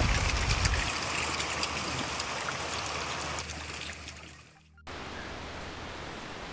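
A small mountain stream trickling and splashing down granite rocks, with a hand held under the flow. The water fades out about four and a half seconds in and gives way to a steady hiss.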